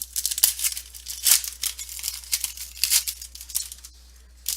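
Trading cards and their crinkly pack wrappers being handled, making a run of irregular rustles and crinkles that ease off briefly near the end.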